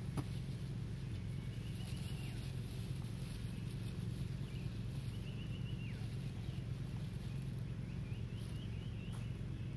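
A bird calling over and over in an open field: a quick run of high notes ending in a falling slide, about every two seconds, over a steady low rumble.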